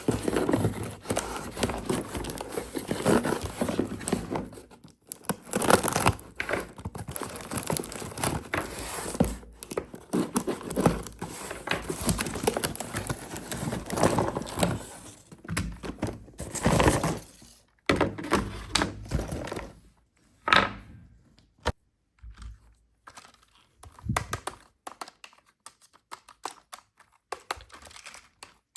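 Toy RC car packaging being handled during unboxing: plastic crinkling, tearing and thunks, dense for the first eighteen seconds or so, then giving way to sparser clicks and knocks.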